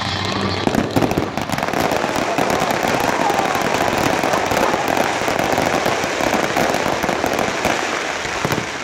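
Fireworks going off in a dense, rapid run of crackling pops, with a few louder bangs about a second in.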